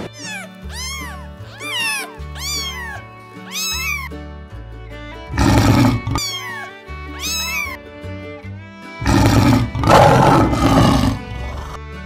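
A kitten mewing in a string of short, high calls that rise and fall, then a lion giving two loud, rough calls, about halfway through and near the end. Background music with slow, steady bass notes runs underneath.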